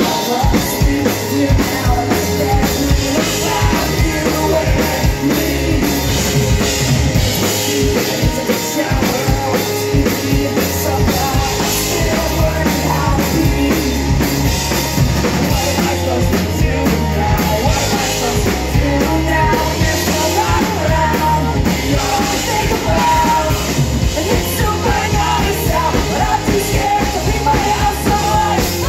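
Live punk rock band playing: electric guitars, bass and a drum kit at full volume, heard from the crowd in a small club.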